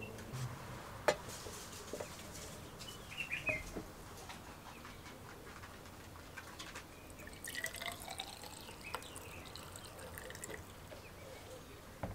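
Lamp fuel poured from a plastic bottle through a plastic funnel into the fount of a Dietz lantern, trickling and dripping. Small plastic handling clicks and squeaks come with it, the sharpest click about a second in.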